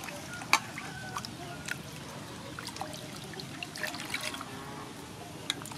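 Hands washing pieces of sole in water in a stainless steel bowl: water sloshing and trickling off the fish as they are rubbed and lifted, with a few sharp clicks, the loudest about half a second in.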